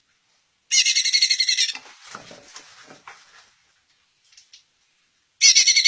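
Caged songbird singing: a loud, rapid run of repeated high notes lasting about a second, softer chirps after it, then another rapid run starting near the end.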